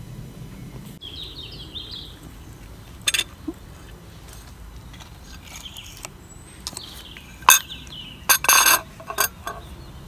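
A spoon and plate clinking: one clink about three seconds in, then a cluster of louder clinks and a short scrape in the last few seconds. Birds chirp faintly in the background, near the start and again in the middle.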